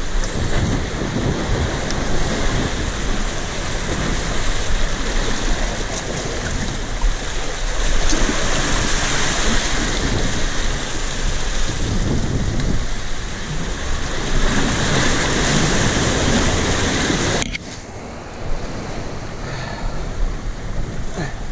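Sea surf surging and washing among the boulders of a rocky breakwater, with wind rumbling on the microphone. The sound drops suddenly about seventeen seconds in, then carries on more softly.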